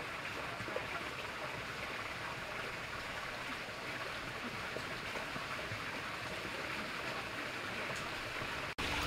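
Water running steadily down a narrow stone garden rill, trickling and babbling over beds of pebbles in the channel.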